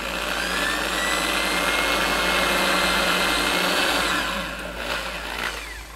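Handheld electric drill with a 1/16-inch bit drilling a pilot hole into the glued-in plug that fills a stripped hinge-screw hole in particle board. The motor speeds up, runs steadily, then winds down from about four seconds in and stops near the end.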